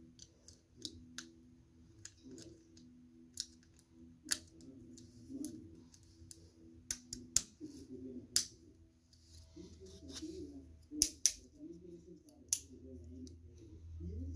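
Small hard plastic Klikbot figure parts clicking and snapping as they are fitted together by hand, in irregular sharp clicks, a few louder ones late on, over a faint low hum.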